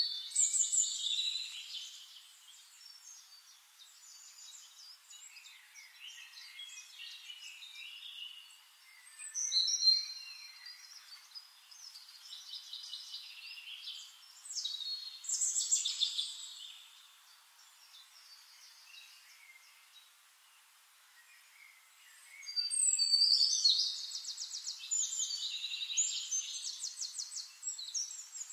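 Songbirds singing in bursts of high chirps, whistled glides and fast trills. The song is loudest near the start, about ten seconds in, and in a long, busy stretch near the end.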